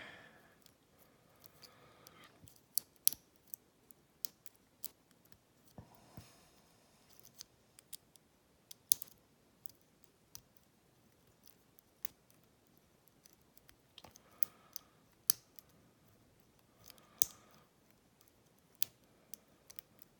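Lock pick working the pins of a small 25 mm Lane padlock: irregular sharp metallic clicks, a few every couple of seconds, as the pins are probed and possibly set.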